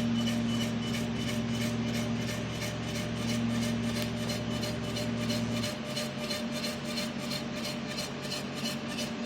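Custom-built selective laser sintering 3D printer running: a steady machine hum with a fast, even pulsing, whose deeper hum cuts out about six seconds in.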